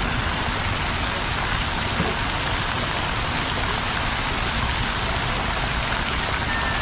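Steady rushing hiss of water falling and splashing from a plaza fountain into its pool, with a faint knock about two seconds in.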